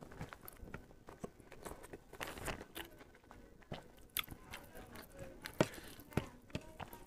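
Close chewing and biting of a person eating, with scattered short crunches and clicks at an uneven pace.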